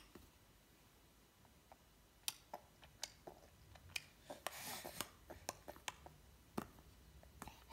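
A baby's hands patting and slapping at a sofa cushion: faint scattered taps and clicks, with a short rustle a little past halfway.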